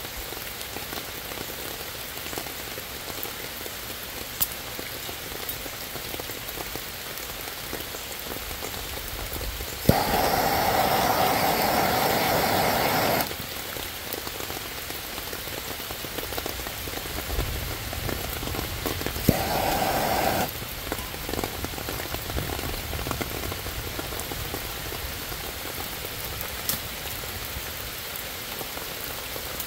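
Steady rain falling on leaves and ground. About a third of the way in, a click and a handheld gas torch hisses loudly for about three seconds, lighting wet tinder. Near two-thirds through it hisses again, more briefly.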